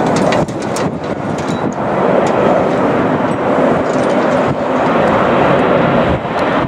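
Airbus A350-1000 airliner's Rolls-Royce Trent XWB engines on final approach to land: a loud, steady jet noise, with a few faint clicks and a brief dip about half a second in.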